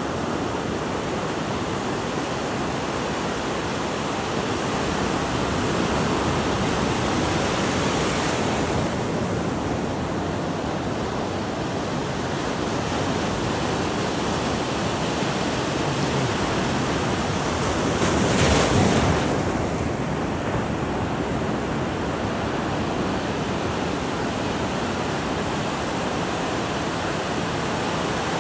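Ocean surf breaking and washing up the shore in a steady rush, with one louder wave crash about two-thirds of the way through.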